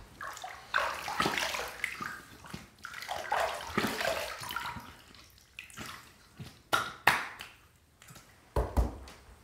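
Hands scooping water from a filled washbasin and splashing it onto the face to rinse off shaving lather: a run of irregular splashes.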